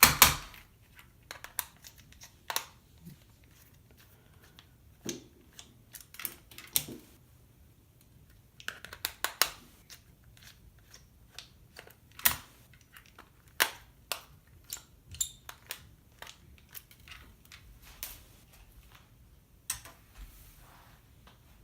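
Small screwdriver working the screws out of a plastic calculator's back cover: irregular clicks and short scrapes of the metal tip on the screw heads and of the plastic case being handled, with quiet gaps between.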